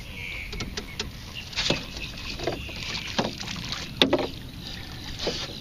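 Water splashing and dripping, with scattered knocks against a small boat's hull, as a clump of weeds is pulled from the water; one sharp knock about four seconds in.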